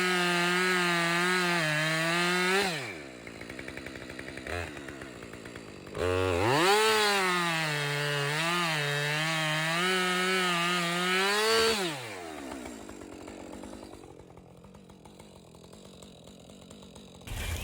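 Two-stroke chainsaw cutting a felling cut into a tree trunk at full throttle, in two long runs. Its pitch sags and wavers under load, it drops back to a quieter idle in between, and it stops about twelve seconds in.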